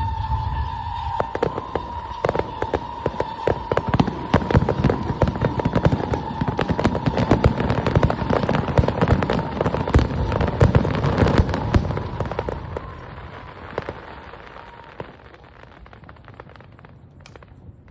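A dense fireworks barrage: rapid, overlapping bangs and crackling with a steady high tone running beneath. After about twelve seconds it thins out and fades to a few scattered pops.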